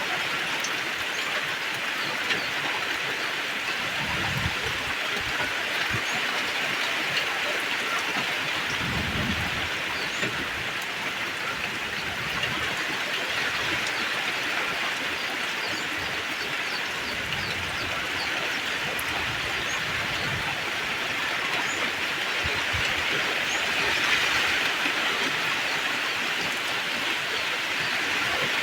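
Heavy rain falling in a steady downpour, a dense hiss with many small drop ticks, and a few short low rumbles about four and nine seconds in.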